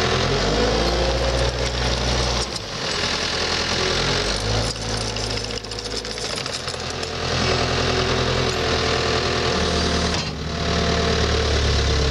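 Skid steer's diesel engine running with a heavy clatter, its pitch and load shifting several times as the controls and hydraulics are worked.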